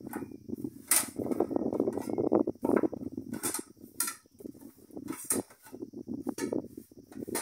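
Plastic plates being taken off a stack and set down one by one on a plastic sheet on the floor: a string of light clacks of plastic on plastic, with rustling and scraping as they slide on the sheet.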